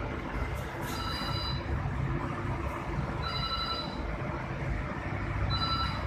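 Rotary rack oven running with a steady low rumble from its burner and fans, while its control panel buzzer gives a short high beep three times, about every two and a half seconds.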